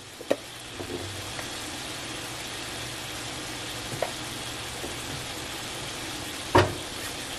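Diced chicken sizzling in oil in a skillet, a steady frying hiss, with a few light clicks and one louder knock near the end.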